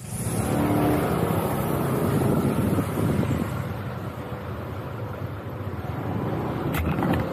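Motor scooter on the move, its engine running under a steady rush of wind over the microphone, with a couple of sharp clicks near the end.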